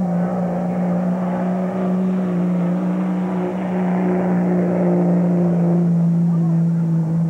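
Pickup truck engine held at full throttle while pulling a weight sled: a loud, steady drone whose pitch dips slightly about a quarter second in, then sags slowly under the load.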